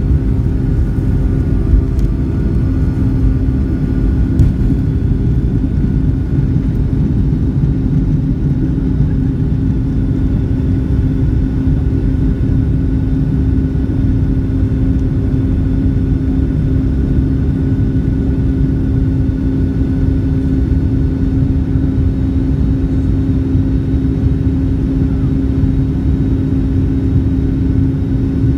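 Boeing 757-200's twin jet engines at takeoff power, heard from inside the cabin: a loud, steady roar and rumble with a droning hum through lift-off and the initial climb. Two brief knocks come about two and four and a half seconds in.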